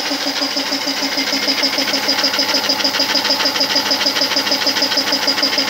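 Homemade belt-driven piston air compressor running steadily, its electric motor driving the pump as it fills the tank. It makes an even chugging pulse of about six or seven beats a second.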